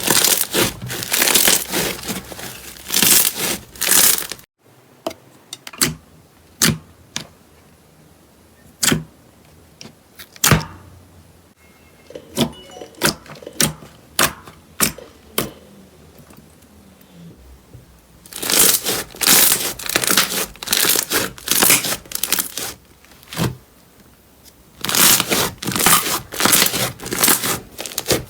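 Slime being worked by hand, making dense crackling and popping. The sound stops abruptly about four and a half seconds in, gives way to scattered single pops and clicks, and turns back to dense crackling after about eighteen seconds.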